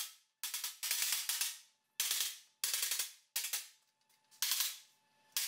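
Hammer striking the bent mounting tabs of a 2015 Chevrolet Silverado's front bumper: a run of sharp metallic blows, one or two a second, each ringing briefly, with a short pause near the end. The tabs are being straightened after they were bent down when the lower valance was torn off in a collision.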